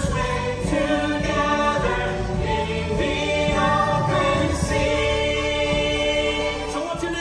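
A stage-musical song: a chorus of voices sings long held notes over backing music with a strong bass line.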